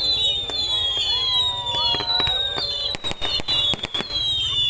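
Fireworks going off: a rapid run of sharp bangs and crackles, with several long high whistles that slowly fall in pitch.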